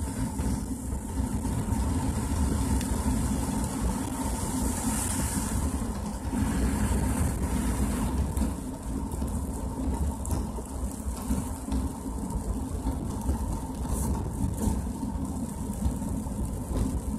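Car cabin noise while driving on a wet road: engine and tyres running steadily with a low rumble. The hiss of water swells about four to six seconds in.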